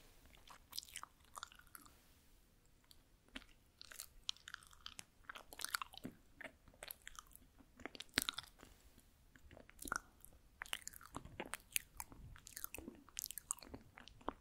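Close-miked chewing of a soft, sticky omegi-tteok rice cake: many small irregular mouth clicks and smacks.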